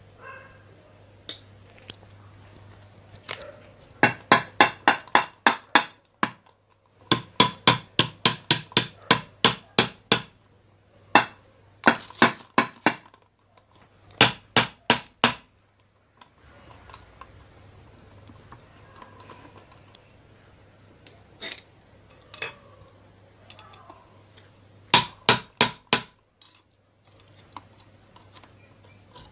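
Hammer tapping on the metal casing of a ceiling fan during reassembly: bursts of quick, ringing metal-on-metal taps, about five a second, with pauses between them and a few single knocks.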